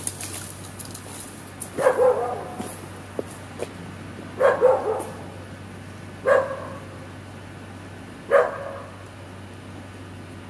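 A dog barking four times, the barks about two seconds apart.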